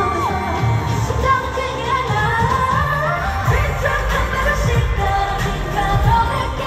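Live K-pop song: several women singing a melody over a pop backing track with a heavy bass beat, recorded from the audience in an arena.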